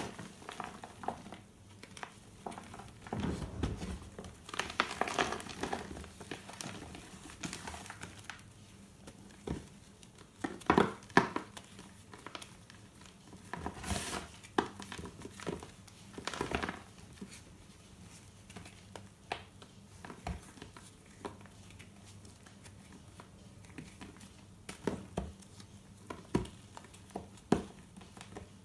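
Reformed gym chalk being crushed and crumbled by hand in a plastic tub: irregular dry crunches and crumbling, with the loudest crunches about ten to eleven seconds in.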